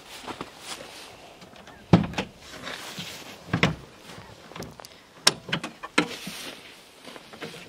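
Sheet-metal clunks from an old Volkswagen Rabbit's body: a door slamming shut about two seconds in, then the hood being unlatched and swung open, with a few sharp knocks near the middle and end. A dead battery has just been found.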